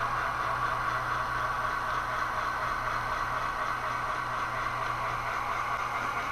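HO-scale model train running along the track: a steady whir and hum from the locomotive.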